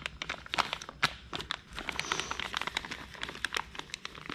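Plastic packaging crinkling and rustling in the hands, with quick small clicks and crackles, as a new fuel filter is unwrapped from its bags.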